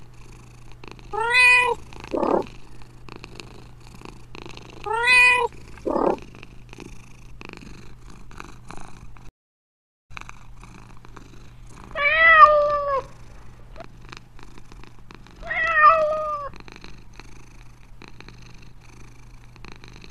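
A domestic cat meowing four times over steady low purring. The first two meows are short and rise then fall; the last two start lower and last longer. The purring breaks off for under a second about nine seconds in.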